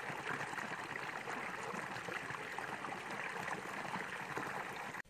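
Small shallow stream running over a little cascade, a steady splashing rush of water that cuts off suddenly at the very end.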